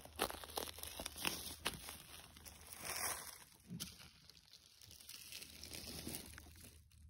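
Footsteps crunching and rustling through dry leaf litter and twigs, with a quick run of crackles in the first couple of seconds, then softer rustling.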